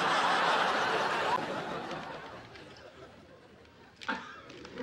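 Sitcom studio audience laughing, loudest at the start and dying away over about three seconds. A single camera shutter click comes about four seconds in.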